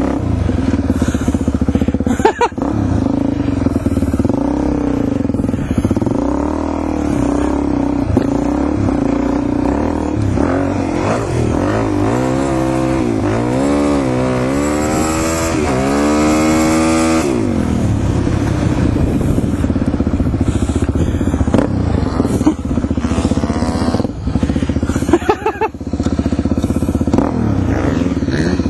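Suzuki DR-Z400E dirt bike's single-cylinder four-stroke engine running while being ridden, its revs rising and falling with the throttle. A little past midway it revs up in several quick climbing sweeps, then drops away sharply as the throttle is shut.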